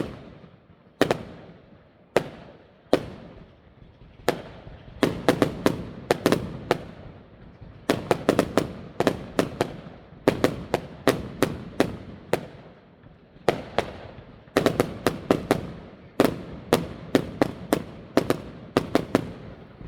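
Fireworks going off in a string of sharp bangs, each with a short echoing tail. They come singly about a second apart at first, then in quick clusters of cracks.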